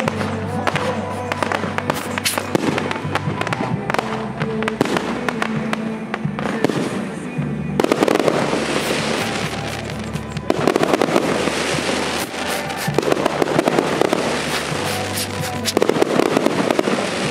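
Aerial fireworks bursting in quick succession, with denser runs of rapid bangs from about eight seconds in and again near the end. Music plays underneath.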